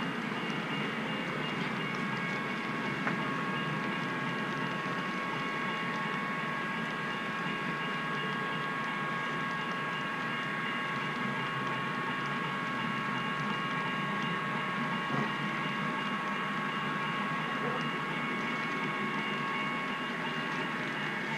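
HO scale double-stack intermodal train cars rolling past on model track, a steady rolling rumble. A thin steady high tone runs through most of it.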